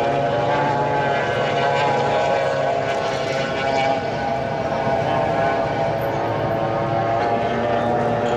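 Racing powerboat's outboard engine running flat out as the tunnel-hull boat speeds past, a steady high-revving whine, with a brief dip in level about four seconds in.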